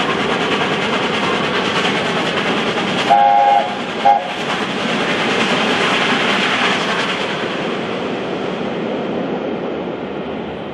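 LNER A4 Pacific steam locomotive and its coaches rolling past with steady rail noise and wheel clatter, fading near the end as the train runs into a tunnel. About three seconds in, the A4's chime whistle gives one blast of under a second, then a short second toot.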